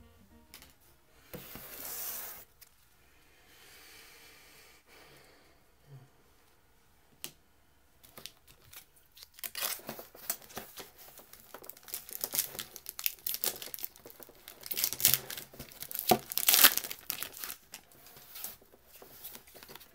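Foil wrapper of a 2000 Topps football card pack being crinkled and torn open by hand. After a brief rustle near the start and a quiet stretch, the crackling starts about eight seconds in and is densest and loudest a few seconds before the end.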